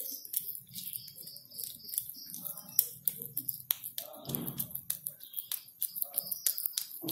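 Hands shaping spiced mashed potato around boiled eggs, making many small sticky clicks and squishes. There is a brief fuller sound about four seconds in.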